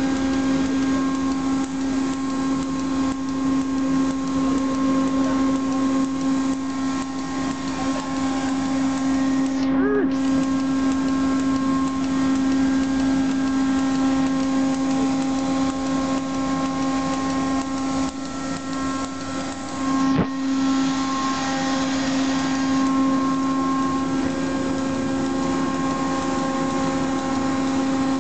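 Steady machinery hum: a constant drone with several fixed tones over a hiss, with one sharp knock about twenty seconds in.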